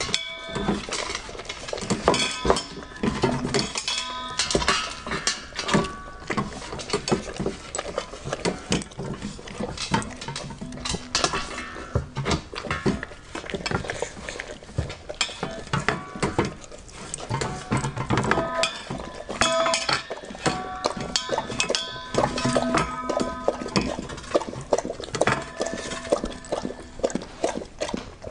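A dog eating: a fast, dense run of chewing and crunching clicks, with short clinks now and then.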